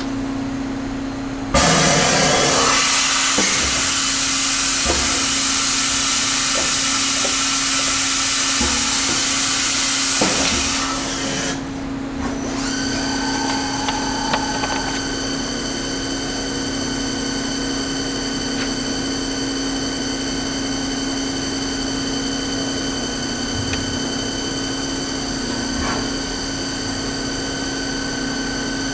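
1996 YCM Supermax CNC vertical machining center running a program with its spindle at about 7,600 RPM: a steady hum throughout, a loud rushing hiss that starts about a second and a half in and cuts off about eleven seconds in, then a steady high-pitched whine of several tones.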